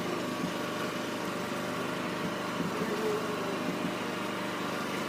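A steady engine idling.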